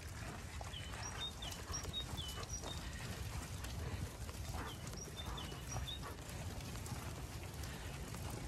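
A flock of Zwartbles sheep trotting along a muddy lane, their hooves shuffling and patting on the ground. Small birds chirp in short, repeated notes, over a low rumble of wind.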